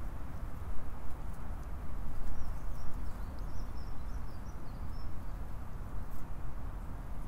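Low rumbling wind on the microphone, with a small bird twittering faintly and high-pitched for a few seconds in the middle.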